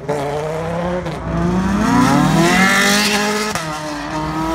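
A car engine accelerating hard, its pitch climbing and then dropping sharply about three and a half seconds in as it shifts up, before it starts climbing slowly again.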